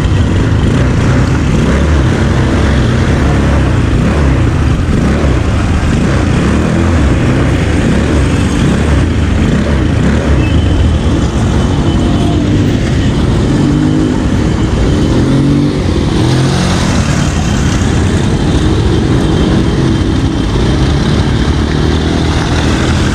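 ATV engine running while being ridden, its pitch rising and falling with the throttle.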